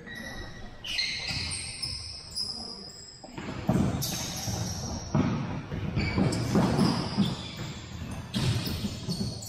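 Indoor soccer played on a hardwood gym floor: the ball thudding off feet and floor, sneakers squeaking in short high chirps, and players calling out, echoing in the large hall, busier from about three and a half seconds in.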